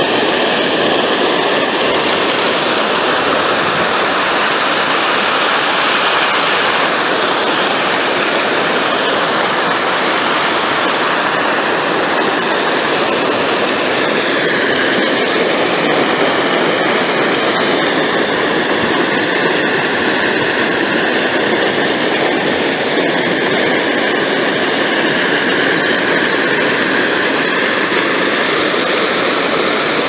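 River water pouring steadily over a low dam's spillway and rushing white over rocks below, a loud continuous rush of water.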